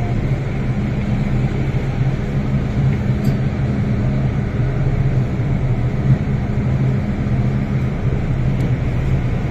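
MTR Kwun Tong Line M-Train heard from inside a passenger car as it runs through the tunnel: a steady rumble of wheels on rail with a low motor hum.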